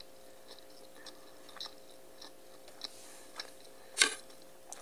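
Person chewing a mouthful of rice and chicken, with small faint mouth clicks. About four seconds in comes a louder clatter of a fork against a plate.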